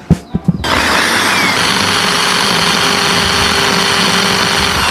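Small handheld electric drill running with a steady high whine as it bores a hole through a hard plastic waterproof action-camera case. It starts about half a second in, after a few light knocks, and cuts off suddenly at the end.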